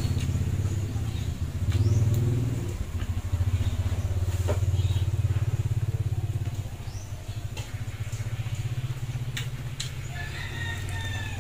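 A small engine idling close by: a steady, low, finely pulsing drone that eases off a little after about seven seconds, with a few short clicks over it and some brief high calls near the end.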